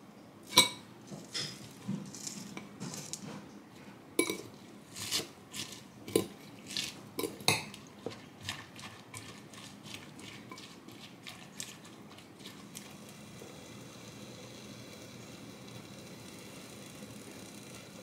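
A metal fork clinking and scraping against a glass bowl while stirring shredded cabbage into beaten egg, in a run of sharp, irregular clinks. Near the end the clinking stops and a faint, steady hiss is left.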